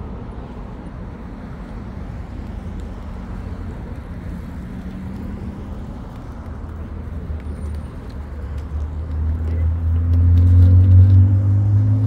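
Low, steady traffic rumble, then a motor vehicle's engine draws closer from about eight seconds in and passes loudest near the end.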